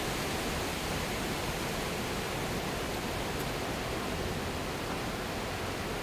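Steady wash of small waves breaking on a sandy beach.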